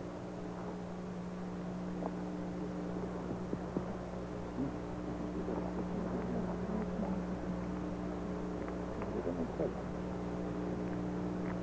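Steady low electrical hum in old broadcast audio, with a few faint scattered rustles and small knocks over it.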